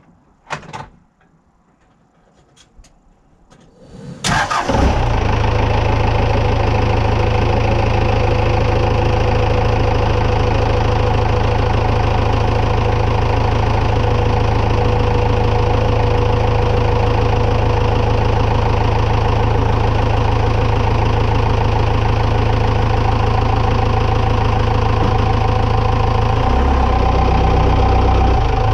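A few knocks, then about four seconds in the Ford F-150 pickup's engine starts and settles into a steady idle. Near the end its low tone shifts.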